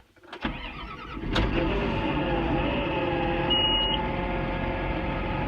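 Tractor engine starting about a second in, then running steadily at idle.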